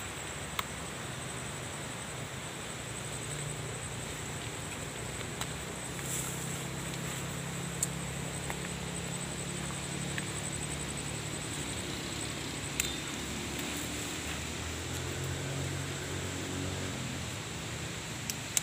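Steady outdoor background: an even, high insect-like drone over a low hum that swells and fades twice, with a few faint clicks and rustles.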